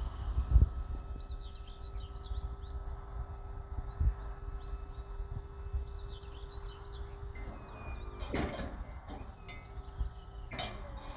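Hydraulic power unit of a HY-RYDER BA-12 trailer-mounted boom lift humming steadily as the boom is worked, stopping about three-quarters of the way through. Wind rumbles on the microphone, birds chirp, and two short noisy bursts come near the end.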